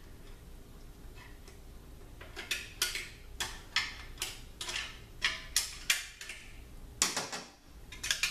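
Light metal-on-metal clicks and taps, about a dozen at uneven intervals beginning about two seconds in, as a snap ring is worked out of its groove inside an RE7R01A automatic transmission case.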